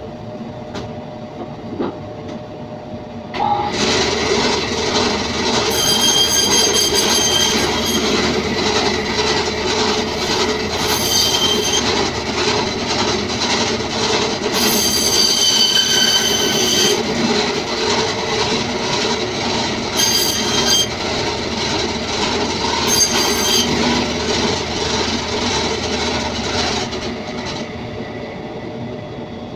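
Meat band saw starts about three seconds in, runs with a steady loud hum and hiss, and stops near the end. A high squeal rises over it five times as lamb pieces are pushed through the blade.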